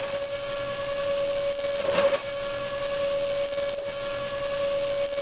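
Robotic arc welding: a steady high buzz over a crackling hiss from the arc, with a brief wobble about two seconds in.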